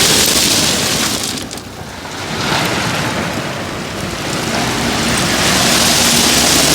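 Loud rushing noise of loose rock pouring and sliding over a low engine hum, easing off for a moment about one and a half seconds in.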